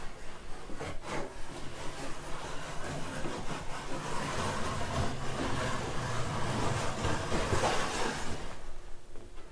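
Wooden rocking chair creaking and grinding, growing steadily louder over several seconds and cutting off suddenly near the end.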